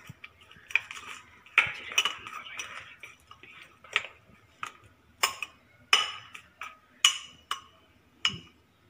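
Metal spoon stirring curd in a glass bowl, clinking against the glass about ten times at irregular intervals, with a short stretch of softer scraping early on.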